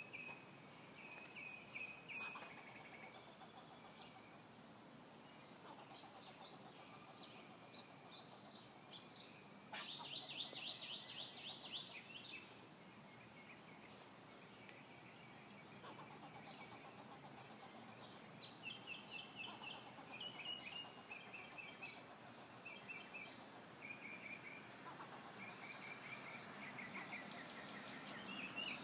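Squirrel giving repeated bouts of rapid, pulsed chattering calls, the scolding alarm call a squirrel aims at a person. Some bouts are higher-pitched than others, and the loudest comes about ten seconds in.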